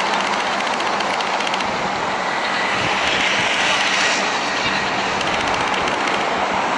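Steady noise of passing road traffic on a multi-lane city street.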